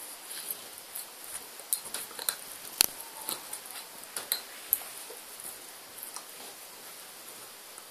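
Staffordshire bull terrier puppy gnawing and licking a chew bone: irregular small clicks and scrapes of teeth on the chew, busiest in the first few seconds with one sharper click about three seconds in, then sparser.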